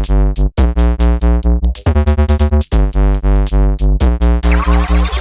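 Electronic background music: synthesizer chords over a steady, pulsing beat.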